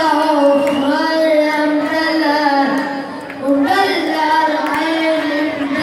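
A child singing in a melismatic Middle Eastern style, holding long ornamented notes, with a short pause about three and a half seconds in before the next phrase.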